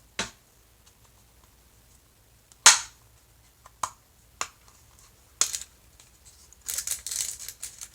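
Hard plastic snapping and clicking as a pink gachapon toy capsule is handled and pried open: a handful of sharp single snaps, the loudest about three seconds in. Near the end comes a stretch of plastic rustling and crinkling as the packaging is handled.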